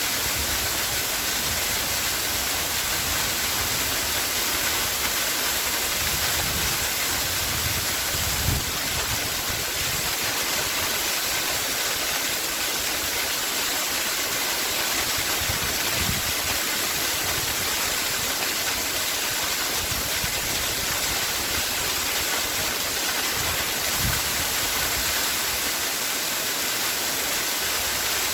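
Waterfall: a steady, even rush of falling water, with a few brief low thuds in the flow.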